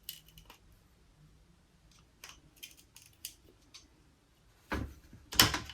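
Small clicks and light taps as metal parts of a motorcycle brake master cylinder are handled with hand tools, with two louder knocks close together near the end.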